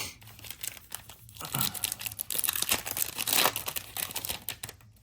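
Crinkling and tearing of a plastic trading-card pack wrapper being handled and torn open. The crackle builds about a second and a half in and is loudest a little past the middle.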